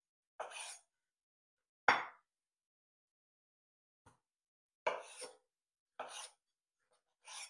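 Kitchen knife cutting a tomato on a wooden cutting board: about six short, separate cuts. Each slices through the tomato and knocks on the board, and the sharpest knock comes about two seconds in.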